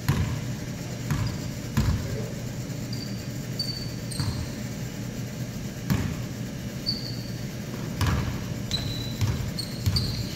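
A basketball bouncing and thudding on a hardwood gym floor at irregular intervals, about eight knocks, echoing in the large hall. Short, high sneaker squeaks from players moving on the court come in between.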